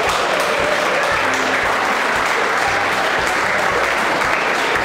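A room full of seated guests applauding, a steady wash of many hands clapping.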